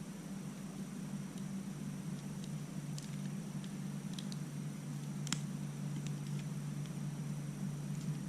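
A few faint, sharp clicks of a baitcasting reel being handled as its side plate is worked to get it open for a spool change, over a steady low hum.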